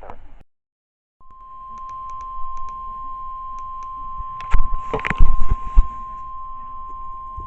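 NOAA Weather Radio warning alarm tone, a single steady beep near 1,050 Hz that starts about a second in and signals that a warning message follows. A cluster of loud clicks and thumps sounds over it around the middle.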